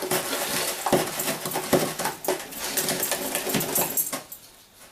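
An egg being beaten by hand into creamed butter and sugar in a mixing bowl: a utensil rapidly clicking and scraping against the bowl, stopping about four seconds in.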